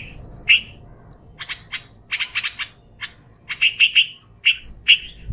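Red-vented bulbul calling: short, sharp chirps, some single and some in quick runs of three or four.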